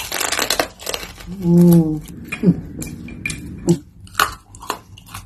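Close-miked eating sounds: a crunchy bite at the start, a short hummed voice about a second and a half in, then a run of sharp clicks and clinks.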